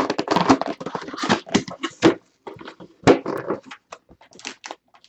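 Packaging rustling and crinkling as a sealed box of trading cards is opened and handled: irregular scratchy rustles with sharp crackles, loudest in the first half.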